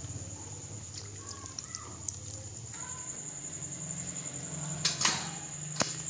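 A low steady hum with a faint high whine, broken about five seconds in by a brief whoosh and then a sharp click.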